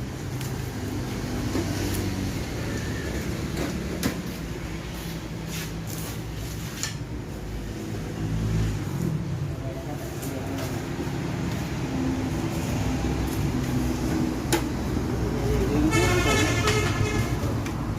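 Street traffic: vehicle engines running steadily, with a few clicks and a brief horn near the end.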